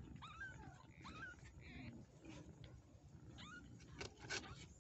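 Newborn kittens mewing faintly while nursing, three short rising squeaks, the thin calls of hungry kittens at the teat. A few soft clicks and rustles near the end.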